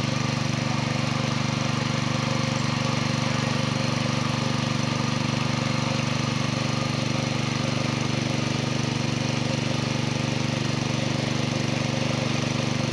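A small engine running steadily at a constant speed, a low drone with a fast even pulse.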